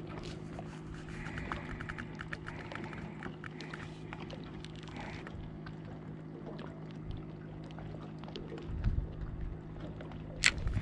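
A steady low mechanical hum, with a quick string of small clicks in the first few seconds, a dull thud near the end and one sharp click just after.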